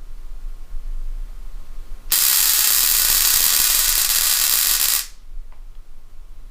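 Handheld ozone generator firing while its trigger is held: a loud hiss starts suddenly about two seconds in, lasts about three seconds and cuts off sharply.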